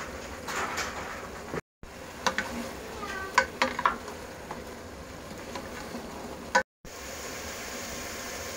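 Food frying in a pan with a steady sizzle, while a spatula stirs and knocks against the pan in a cluster of clinks near the middle. The sound drops out briefly twice.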